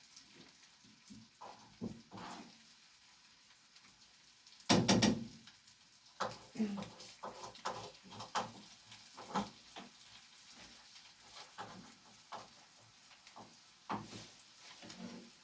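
Kitchen handling sounds: scattered small clicks and knocks, with one loud clatter about five seconds in.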